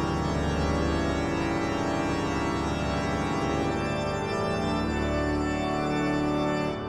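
Background music of long sustained chords, fading out at the very end.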